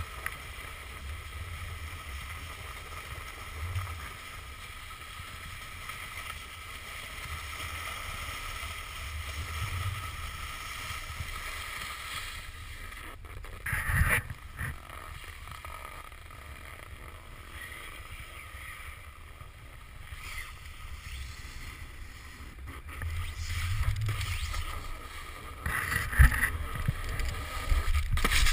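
Snowboard sliding and scraping over packed snow while riding downhill, a steady rushing noise with some wind on the microphone. It grows louder with sharper knocks and scrapes about halfway through and again near the end.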